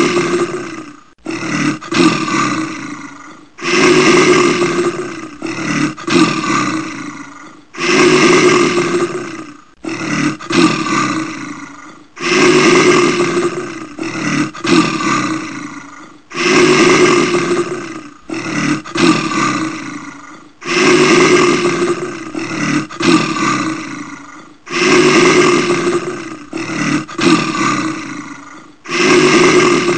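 Brown bear roaring: a long roar followed by a few shorter ones, the same pattern repeating about every four seconds like a looped recording.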